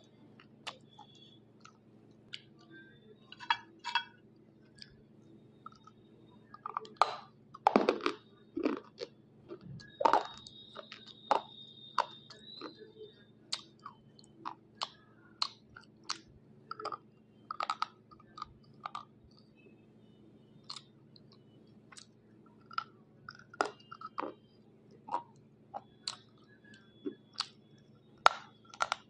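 White unshaped slate pencil being bitten and crunched between the teeth: irregular sharp cracks and crunches, the loudest about eight and ten seconds in. The pieces are very hard and barely break under the teeth.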